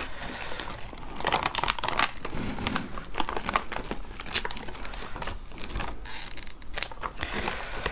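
A clear plastic food bag crinkling and rustling as it is handled and cooked crayfish are shaken out of it onto a plate, in irregular crackles and clicks.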